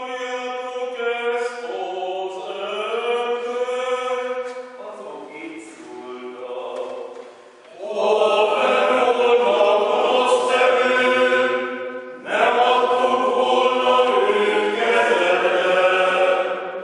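Men's choir singing a chanted Passion setting. A single sung line carries the first several seconds; then the full choir comes in much louder about eight seconds in, pauses briefly, and sings a second loud phrase.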